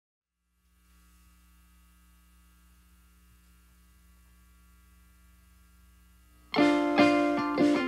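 A faint steady electrical hum, then about six and a half seconds in the song starts with loud strummed chords on acoustic guitar and ukulele, about two strums a second.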